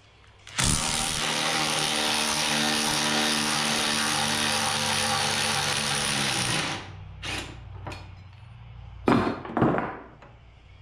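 Cordless impact wrench hammering steadily for about six seconds on a nut at the nose of a rear axle's differential. A few short bursts follow, the last two the loudest.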